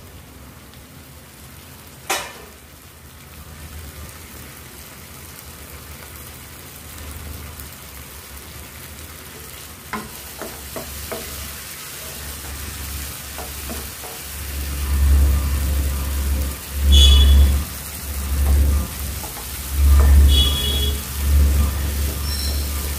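Mushrooms and curry leaves frying in oil in a non-stick pan, stirred with a wooden spatula: a low sizzle with a sharp click about two seconds in. From a little past halfway, the spatula's scraping and knocking against the pan grows louder and more frequent.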